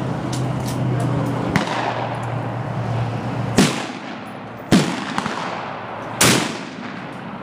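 Three sharp gunshots about a second to a second and a half apart, with a fainter shot before them, over a steady low hum that drops away at the first loud shot.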